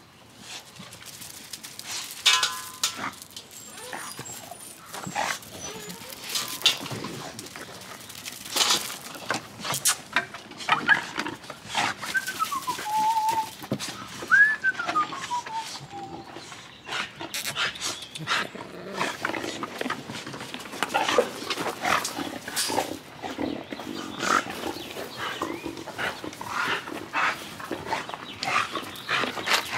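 American Bully dogs moving about, with a steady scatter of short knocks and scuffs from paws and footsteps on a wooden deck. A dog gives a short yip early on and two falling whines a little before halfway.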